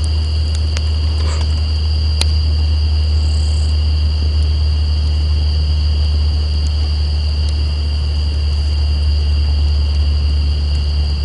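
Steady low rumble of a semi-trailer truck, building slightly in the second half, over the constant high two-note drone of night insects. A few sharp crackles from the campfire come through.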